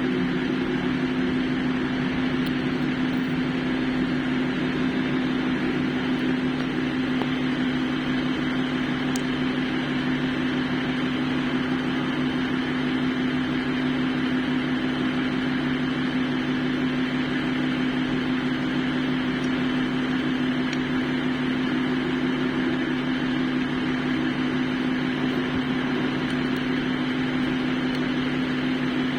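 A steady machine drone with a strong constant hum and a hiss above it, holding the same pitch and level throughout.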